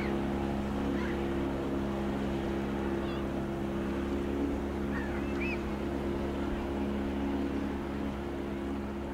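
Boat motor running at a steady drone, with a few short high chirps over it about one, three and five seconds in.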